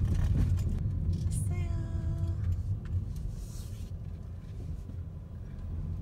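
Low steady rumble inside a car cabin as it rolls slowly along an unpaved dirt road: engine and tyres on the rough surface. A short held tone sounds briefly about a second and a half in.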